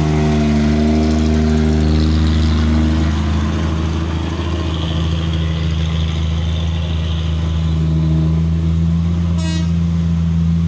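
Road vehicle engines running with a steady low drone, one higher engine note fading out about three seconds in; a short horn beep near the end.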